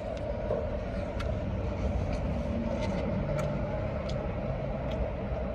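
Steady low hum of an idling car, heard from inside the cabin, with a few faint clicks scattered through it.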